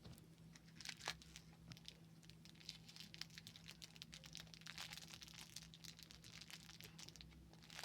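Faint crinkling and rustling of plastic packaging being handled and opened by hand, in many small crackles, over a steady low hum.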